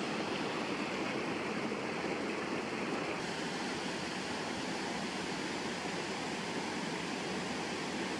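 Small waterfall spilling between boulders into a rocky stream: a steady rush of falling water. Its tone shifts slightly about three seconds in.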